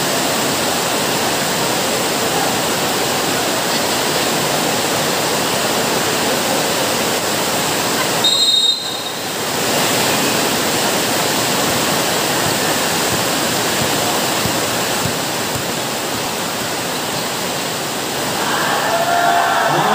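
A large crowd of spectators shouting and cheering in a continuous loud din. About eight seconds in there is a short, high whistle.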